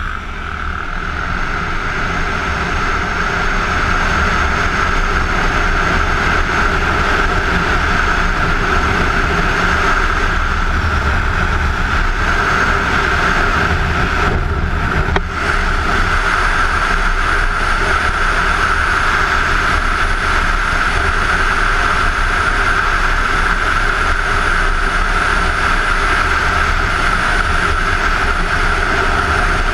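Wind rushing over a helmet-mounted camera as a Kawasaki Ninja 250 pulls away and cruises, with the engine droning underneath. The noise builds over the first few seconds and dips briefly about halfway through.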